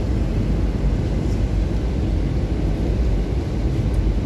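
Steady low rumble of airflow and engines inside the cabin of an Airbus A320 descending with its slats extended.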